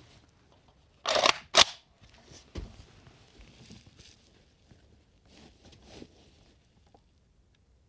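Rifle handling on an FEG HD-18 (Hungarian SVD) in 7.62x54R: about a second in, a short metallic scrape and then a sharp clack, as when the action is worked. Faint rustles and small knocks of handling follow.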